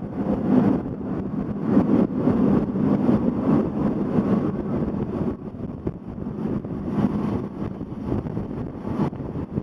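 Wind buffeting the microphone out of the open window of a moving Bernina line train, over the train's rumble on the track; the gusts come and go unevenly.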